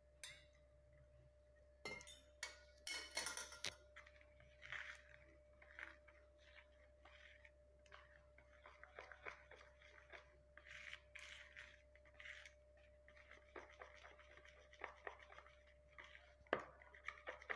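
Steel spoon stirring thick henna-and-indigo paste in a plastic bowl: faint, scattered scraping and soft clicks, with a few louder clinks about two to three seconds in. A faint steady hum runs underneath.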